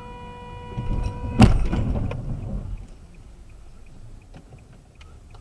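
A car horn sounding steadily, cut off about a second and a half in by a loud collision impact, with crunching noise that dies away over about a second.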